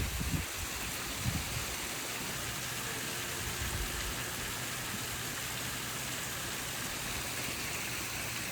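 Steady rush of water flowing and splashing in a natural pool's filtration loop.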